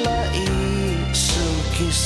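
Background music: a melody over held bass notes, with a few percussion hits.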